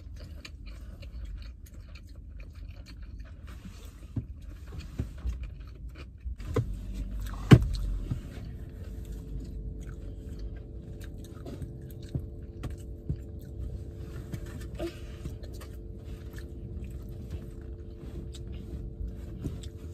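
Chewing and small clicks of chopsticks against a plastic sushi container inside a car, over a low rumble, with one sharp knock about seven and a half seconds in. A steady low hum comes in about six and a half seconds in.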